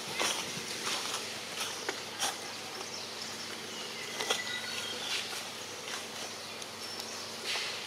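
Outdoor ambience of insects buzzing, with scattered short clicks and rustles and a few brief high chirps a little past the middle.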